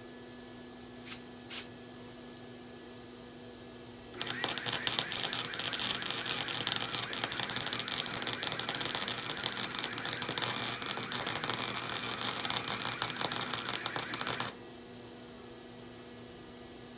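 Flux-core wire welding arc from a Chicago Electric 220 amp wire-feed welder, crackling and spattering steadily for about ten seconds on a steel exhaust pipe, then stopping abruptly. A couple of faint clicks come before the arc starts.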